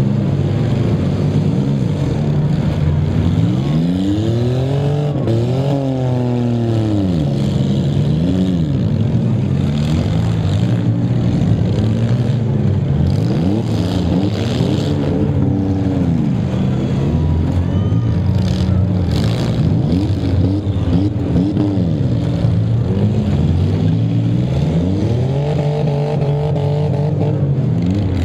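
Several six-cylinder demolition derby car engines revving up and dropping back again and again as the cars back up and ram one another, with a few short collision impacts.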